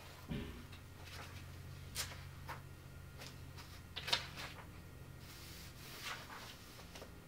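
Pages of a book being leafed through: a few soft, brief paper rustles about every two seconds, over a faint steady low hum.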